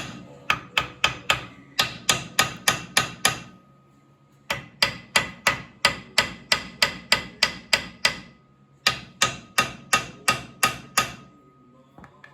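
Hammer blows on the steel front hub of a Kubota L3400DT tractor that is stuck on its axle spindle, each strike ringing metallically. The strikes come in three quick runs of about three to four a second, with short pauses between them.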